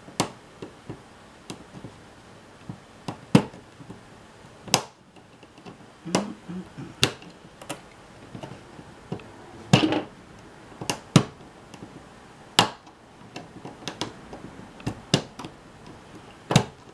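Small screwdriver clicking and tapping against the plastic gears and metal chassis of a camcorder's tape-transport mechanism while prying a part out. The clicks come at uneven intervals, a few of them sharper and louder than the rest.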